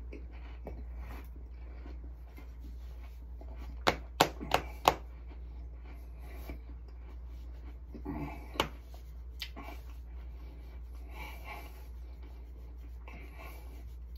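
Hands rubbing and patting a large belly through cloth: a quick run of four sharp pats about four seconds in, another sharp pat near nine seconds, and soft fabric rubbing between them.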